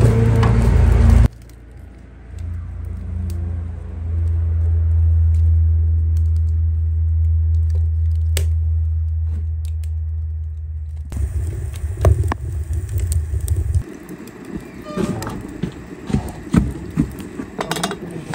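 Wood fire burning in a steel box stove, crackling with scattered sharp pops, over a deep steady rumble that stops about two thirds of the way through.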